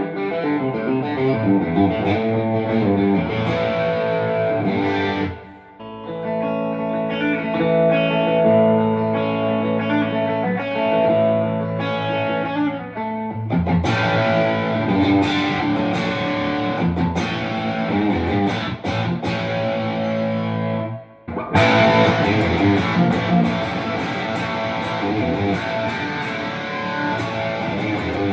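Electric guitar with P-90 pickups played through a ToneKing Royalist preamp's channel 2 at full gain, no pedals: overdriven chords and riffs picked from light to heavy attack, with brief breaks about five and a half and twenty-one seconds in.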